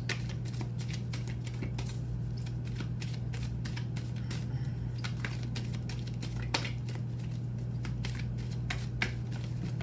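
A deck of tarot cards shuffled by hand: a long run of quick, light card clicks and flicks, a couple of them sharper about two-thirds of the way in and near the end, over a steady low hum.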